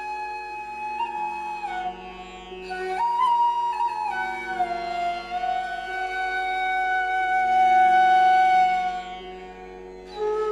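Flute music: a slow melody of long held notes over a steady drone, dipping quieter near the end.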